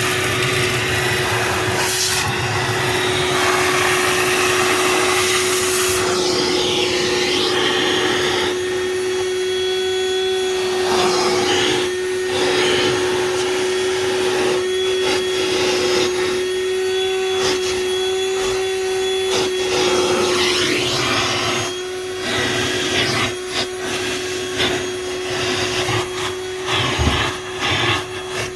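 Hart 20-volt cordless 2-gallon wet/dry shop vacuum running with a steady motor whine, its hose attachment sucking up dirt and debris from a car's interior, with changing rushes of air and rattles as it picks things up.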